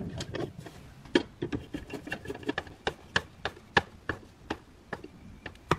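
Scattered light clicks and taps as a mounting board is handled and a screw is driven by hand with a screwdriver into the plastic cargo-area tub.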